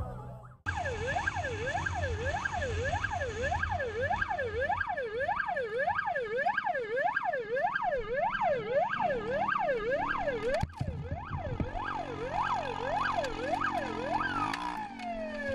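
Emergency vehicle siren in fast yelp mode, sweeping up and down about twice a second over road noise. It breaks off for a moment, starts again less evenly, then winds down in one long falling glide near the end.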